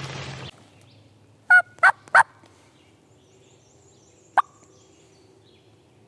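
Turkey yelping: three loud, quick notes, then a single short cluck a couple of seconds later. Just before, leaves rustle underfoot, stopping about half a second in.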